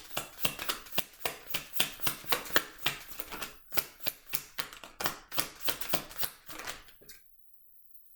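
Tarot cards being shuffled by hand: a quick run of crisp card slaps, about three or four a second, that stops about seven seconds in, then a single last slap.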